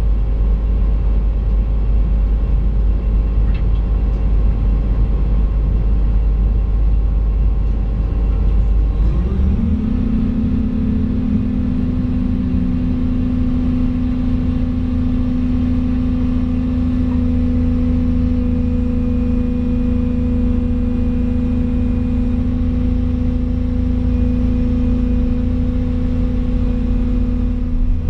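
Volvo EC220 excavator's diesel engine heard from inside the cab, running low and steady, then rising in pitch about ten seconds in and holding a steady, higher running speed.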